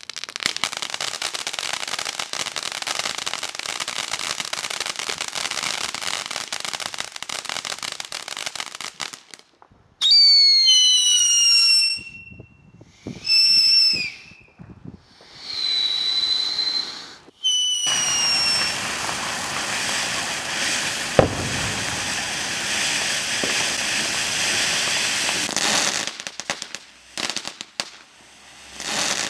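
Ground fireworks going off: a long, dense crackling hiss of sparks, then whistling fireworks, with several falling whistles about ten seconds in and two shrill steady whistles a few seconds later. More crackling spray follows, with a single sharp pop partway through, before it breaks up near the end.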